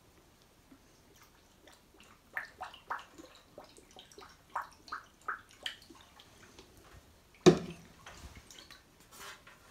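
Coolant being poured from a bottle into a PC water-cooling reservoir: a run of about ten small drips and splashes, then a single loud knock a couple of seconds later.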